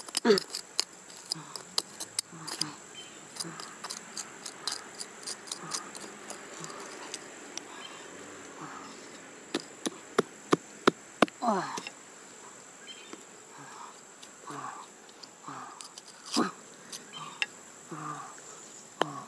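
Small hand trowel scraping and scratching through dry, loose soil, with many sharp clicks from the blade and grit, over a steady high insect hum.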